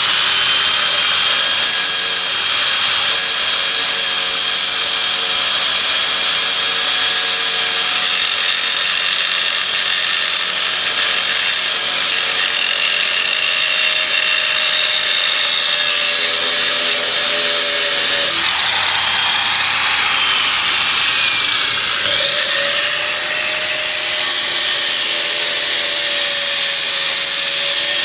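Angle grinder cutting hardened 8 mm steel chain: a loud, steady grinding hiss of the abrasive disc on hard steel. Between about 18 and 22 seconds a whine falls in pitch, then the steady cutting noise resumes.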